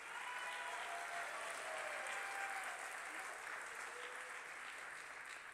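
Audience applauding, tapering off toward the end.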